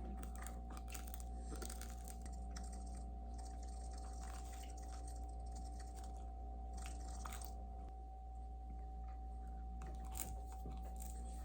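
Scattered soft clicks and scratchy sounds over a steady low hum and a faint steady tone.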